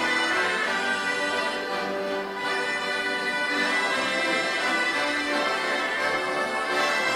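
Several accordions playing a folk dance tune together, with held notes and chords.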